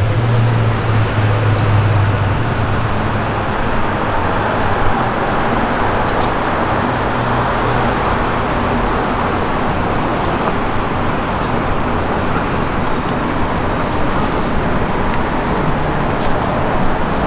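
Steady city traffic noise beside a road, with a heavy engine's low hum that drops in pitch at the start and fades out about two seconds in.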